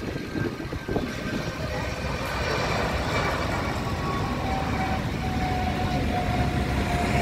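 Airbus Beluga cargo jet's engines whining as it touches down and rolls out, growing a little louder about two seconds in, over a steady low rumble.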